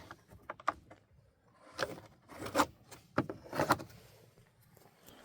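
Several brief scrapes and rubs of handling noise, about five spread over a few seconds.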